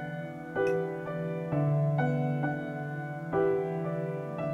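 Background piano music, with single notes and chords struck at a slow pace and left to ring.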